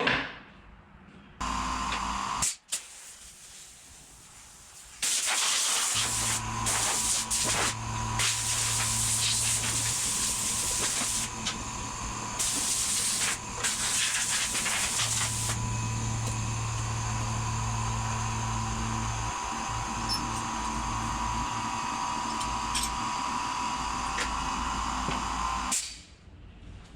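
A power tool running with a loud hissing noise and a steady whine. It starts about a second and a half in, grows louder about five seconds in, and cuts off about a second before the end.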